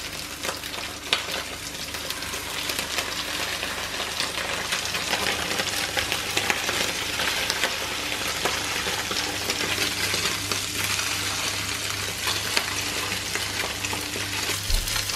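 Almond-flour-coated lemon sole fillets frying in hot olive oil and butter in a frying pan: a steady sizzle with fine spitting crackles, building over the first few seconds as the fillets go in.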